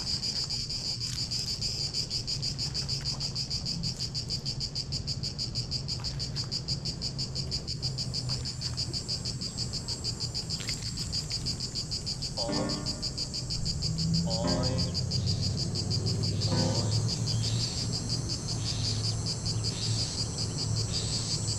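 Insects chirping in a fast, steady pulse, with a low hum beneath. From about twelve seconds in, three short pitched calls rise over the chirping, and the low hum grows a little louder.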